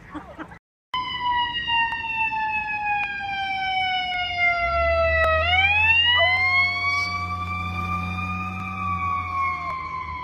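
An emergency vehicle's siren wailing, its pitch falling slowly for several seconds and then rising again, with a low engine rumble coming in about halfway. A dog joins in with a steady howl for the last few seconds.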